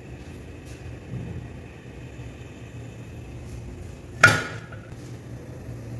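A single sharp metallic clank of the frying pan knocking against the gas stove's iron grate about four seconds in, with a short ringing tone after it, over a steady low hum.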